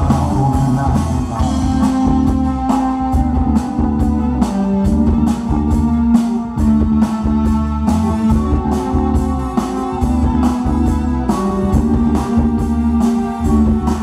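Live band playing an instrumental passage: electric guitar, keyboards and bass over a drum kit keeping a steady beat.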